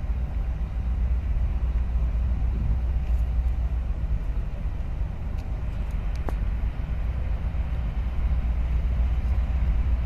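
Deep, steady rumble of a large container ship's engines as the ship passes close by, with a faint hum running over it.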